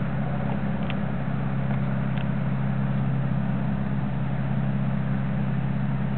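A steady low hum with a hiss over it, holding two constant low pitches at an even level, with two faint light clicks about one and two seconds in.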